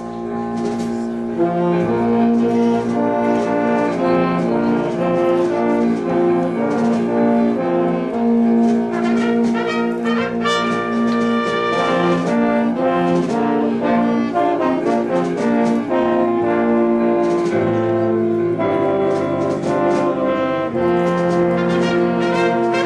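Church orchestra playing an old gospel hymn instrumentally, with brass carrying held chords and the melody.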